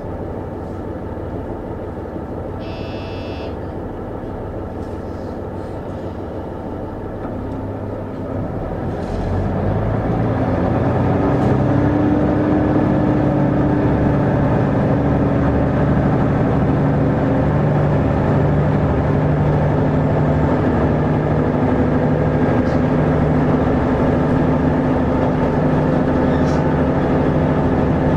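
Diesel engine of a JR KiHa 75 railcar, heard from inside the car. It idles at first, with a brief high beep about three seconds in. Around eight to ten seconds in, the engine throttles up as the train pulls away, getting louder, and its note rises a little and then holds steady.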